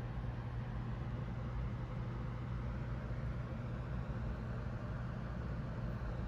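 Steady low hum with an even background hiss, a constant machine or fan drone with no changes.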